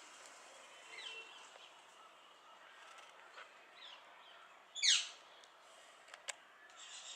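Small birds calling with short chirps over a faint steady hiss. The loudest is one quick call sweeping down in pitch about five seconds in, followed by two sharp clicks.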